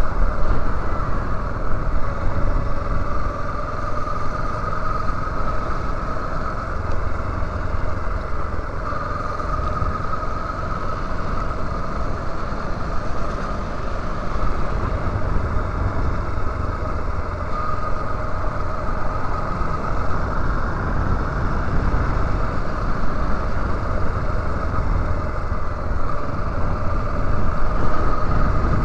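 Yamaha Lander 250 single-cylinder motorcycle riding at a steady cruising pace, heard from a helmet-mounted camera. Steady low wind rumble on the microphone, with a faint engine tone that wavers slightly with the throttle.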